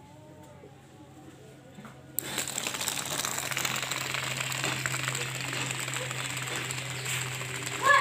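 Small battery-powered DC gear motor of a homemade cardboard paddle-wheel car switched on about two seconds in, then running steadily as the car drives along the ground.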